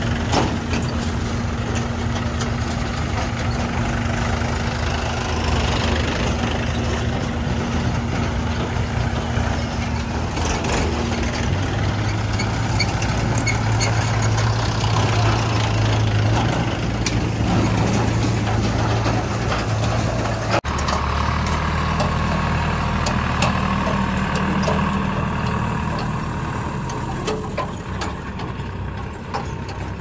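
Diesel engines of a JCB 3DX backhoe loader and a tractor working at a loading site, running steadily. The engine note shifts about eleven seconds in and changes again after an abrupt break about two-thirds of the way through, with a few light knocks over it.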